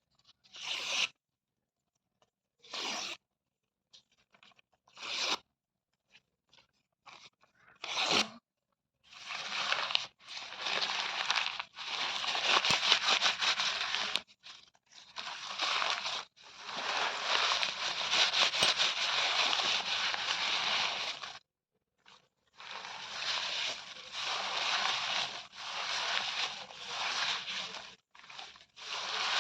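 Paper being torn: a few short rips a couple of seconds apart, then long, drawn-out tears broken by brief pauses.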